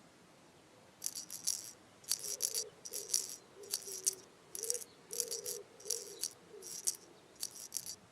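Soft shaker rattles in short, uneven clusters, about one a second, over a faint wavering low tone.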